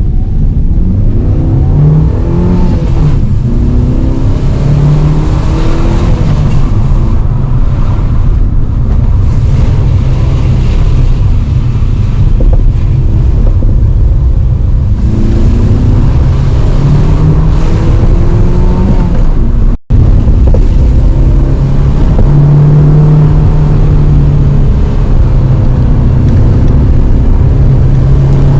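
Stock Fiat Panda 1.2 8v's four-cylinder petrol engine accelerating, its pitch rising several times as the revs climb. The sound cuts out for an instant about twenty seconds in, then the engine holds steadier, higher revs.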